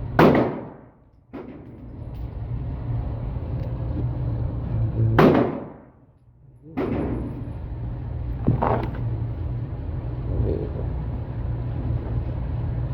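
Two loud gunshots about five seconds apart, then a fainter shot about three seconds later, over a steady low hum.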